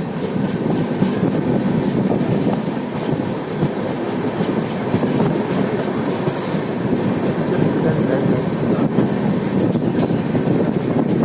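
Express train running along the track, heard from the open doorway of a moving coach: a steady loud rumble of wheels on rails with occasional short clicks.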